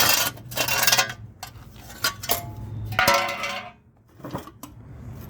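Metal parts of a small engine clanking and clinking as they are handled, about five separate knocks, the one about three seconds in ringing briefly.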